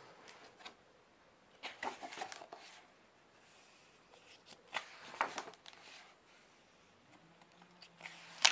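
Pages of a large hardcover book being turned by hand: two papery swishes, about two and five seconds in, then a sharp tap near the end.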